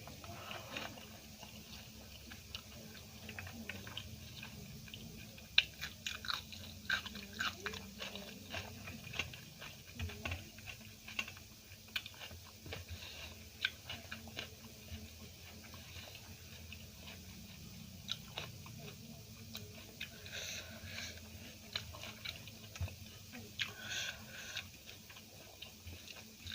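Close-miked chewing of food, with many short crisp crunches that come thickest in the middle. One sharp crunch, about five and a half seconds in, is the loudest.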